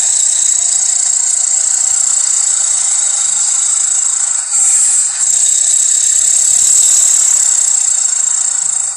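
Monster growl sound effect built from animal snarls: a harsh, hissing, drawn-out growl with two brief breaks about four and a half and five seconds in.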